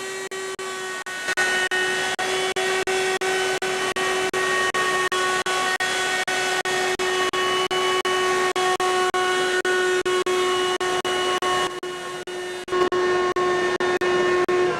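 A loud machine running, with one steady whining tone held unchanged over a wash of noise; the tone thins out briefly about twelve seconds in and then comes back.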